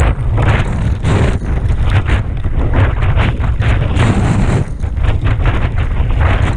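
Wind buffeting the microphone of a camera on a mountain bike riding fast downhill, with frequent clattering knocks from the bike and tyres over rough ground.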